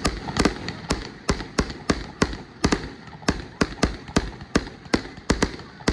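Aerial fireworks going off in quick succession, about three sharp bangs a second.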